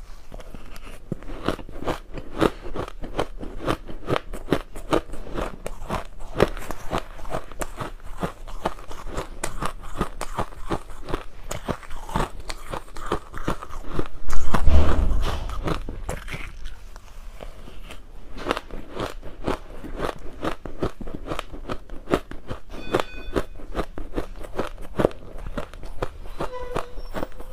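Close-up crunching and chewing of frozen matcha ice, a dense run of sharp cracks and crackles as the ice is bitten and ground between the teeth. About halfway through there is one loud, deep thump.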